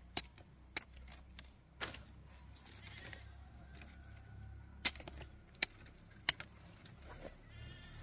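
Knife chopping cassava: several sharp knocks of the blade at uneven spacing.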